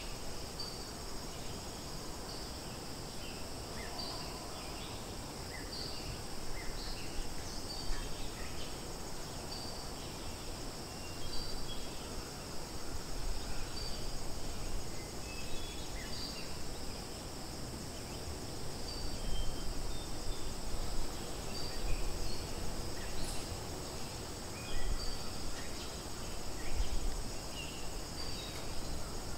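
Outdoor insect chorus: a steady high drone of insects with many short bird chirps scattered through it, over an uneven low rumble.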